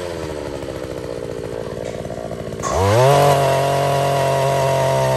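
Single-cylinder two-stroke petrol engine of a Takyo TK3P wheeled push-frame earth auger boring into soil. It runs at low revs, is throttled up sharply a little past halfway, and holds at steady high revs, louder.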